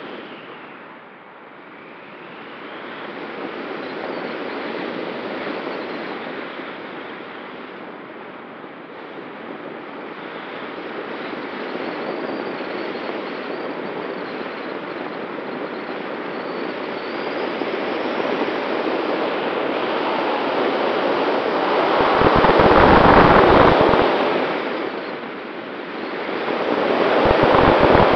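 Wind rushing over a camera mounted on the wing of a Schleicher ASW 19 glider in flight, swelling and fading. Two loud gusts buffet the microphone near the end.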